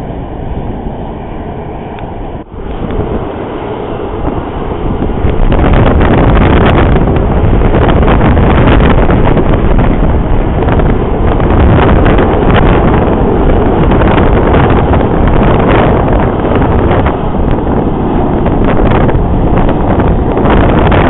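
Jet airliner engines running loud as a plane passes, mixed with wind buffeting the microphone; the noise swells about five seconds in and stays loud.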